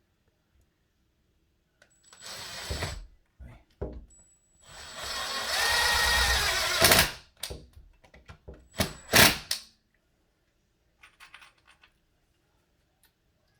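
Power drill running in bursts, driving screws to fasten a blind's mounting bracket: a short burst, then a run of nearly three seconds that rises in pitch and holds, then two quick bursts.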